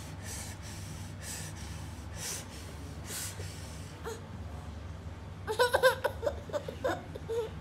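Soft breaths about once a second, then a baby's short run of high, wavering voice sounds about two-thirds of the way through, the loudest part.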